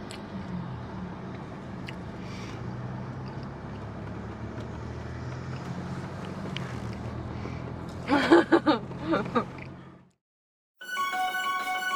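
Steady low hum of a car's running engine heard inside the cabin, with a brief voice about eight seconds in. It cuts to a moment of silence, and music starts near the end.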